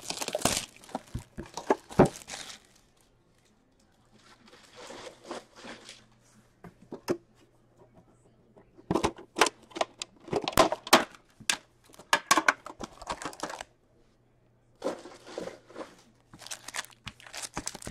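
An Upper Deck hockey card box is torn open by hand, then its foil card packs crinkle and rustle as they are pulled out and handled. The sound comes in bursts of tearing and crackling, with short pauses between.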